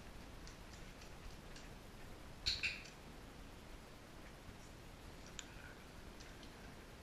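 A dog's claws tick faintly and irregularly on a bare wooden floor as it walks. A short, sharp double sound, high in pitch, stands out about two and a half seconds in.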